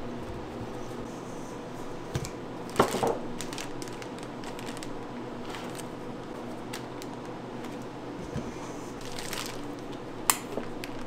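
Food-preparation handling sounds: soft squishing over a steady low hum, with a few light clicks and knocks about two to three seconds in and again near the end.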